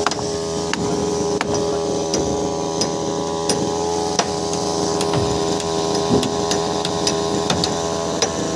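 A steady mechanical hum holding one pitch, with scattered sharp clicks and knocks over it.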